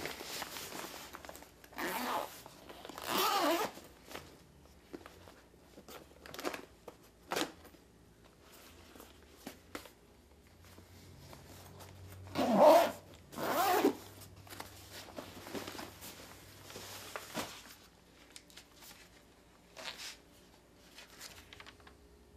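Zipper on a fabric bag pulled open and shut in short runs, with rustling and handling of the bag's contents between them; the two loudest pulls come a little past the middle.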